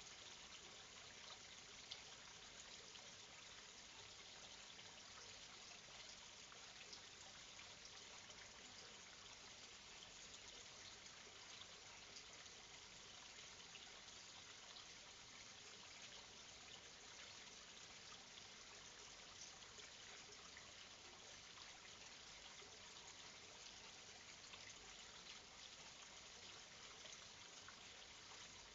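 Near silence: a faint, steady hiss from the night-vision camera's own microphone, with one small click about two seconds in.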